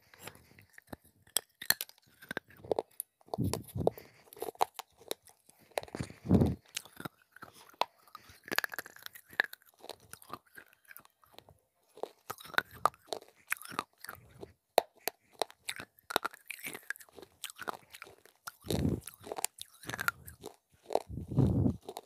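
Pieces of baked clay being bitten and chewed right at a clip-on microphone: a steady run of sharp, crisp crunches, with a few louder, deeper chews.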